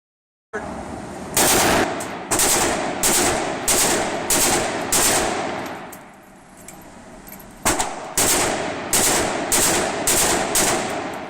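Gunfire at a shooting range: two strings of single shots fired in quick succession, about one to two a second, each with a ringing echo. About six shots, a pause of roughly two seconds, then about seven more.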